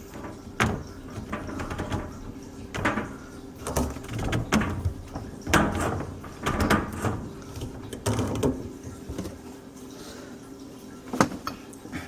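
Plastic sink drain pipe and fittings being handled and pushed back into place: irregular clicks, knocks and scraping.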